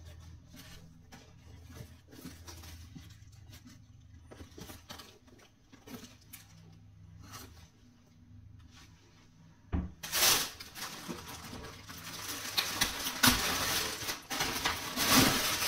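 Faint handling noises as a leather sneaker is turned in the hands: scattered small taps and rubs. About ten seconds in, loud, continuous crinkling and rustling of plastic poly mailer bags as hands dig through the packaging.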